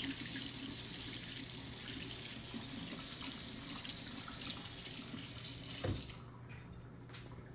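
Kitchen sink faucet running as hands are washed under it, a steady rush of water; it is shut off about six seconds in with a brief knock.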